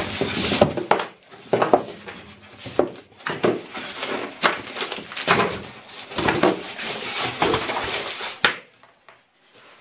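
Foam and plastic packaging being handled as items are taken out of a box: irregular rustling, scraping and light knocks, dying away near the end.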